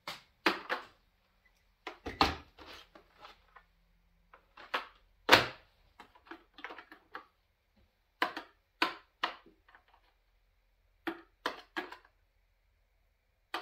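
Steel bolts and nuts being set one by one into the compartments of a Snap-on plastic magnetic teardown tray, each landing with a short click or clack. About a dozen separate clicks come in small groups, with pauses between.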